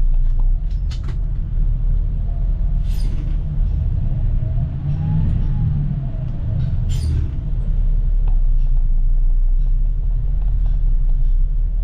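A King Long bus's diesel engine running with a steady low rumble, heard from the driver's seat. Two short air hisses come about 3 and 7 seconds in, and the engine's pitch rises and falls once around the middle.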